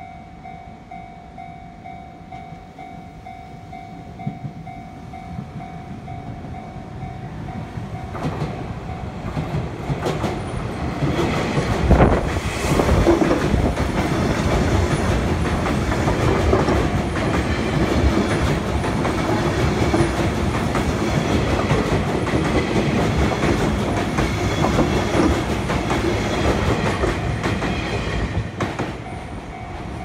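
A Japanese level-crossing warning bell rings steadily as a Sotetsu Line commuter train approaches. The train then passes loudly for about sixteen seconds, its wheels and running gear drowning out the bell. The bell is heard again near the end as the train clears.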